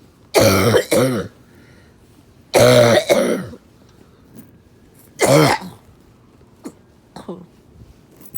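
A person coughing hard and clearing the throat, trying to bring up phlegm. There are three loud bouts a couple of seconds apart, the first two of two coughs each, then a faint one near the end.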